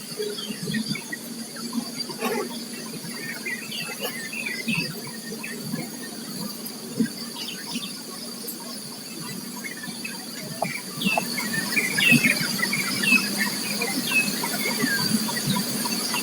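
Many small wild birds chirping in quick, scattered notes, busier in the second half, over a steady high insect drone.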